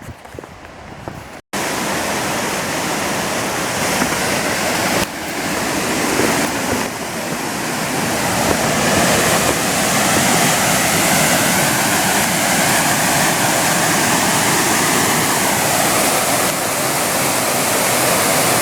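Waterfall pouring: a loud, steady rush of falling water that cuts in abruptly about a second and a half in and swells a little over the next few seconds.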